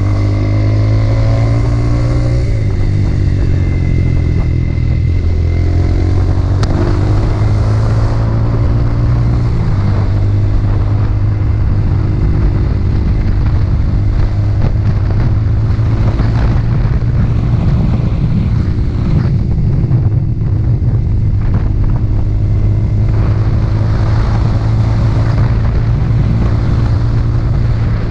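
Motorcycle engine running while riding, its pitch shifting with throttle and gear changes, with a steady rush of wind and road noise.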